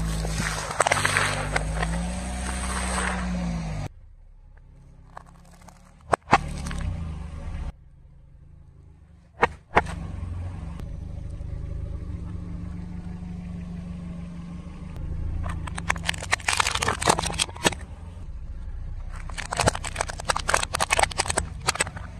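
A car's tyre slowly rolling over objects with the engine running at a low hum: a dense crunching at the start as cereal in bowls is crushed, a few single sharp snaps, and later two long runs of rapid cracking as brittle things break under the tyre.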